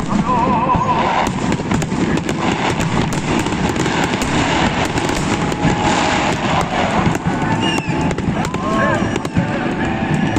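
A fireworks salute: continuous dense crackling and rumbling bangs. A warbling whistle sounds for about a second near the start, and a few short rising-and-falling whistles come near the end, over crowd voices.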